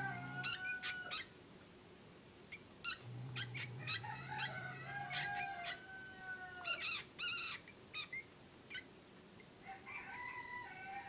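Domestic cat with a baby rat, making drawn-out, wavering mewing calls, with a low growl in the first half-second and again for a couple of seconds around the middle. Many short, sharp, high squeaks and clicks are scattered through it.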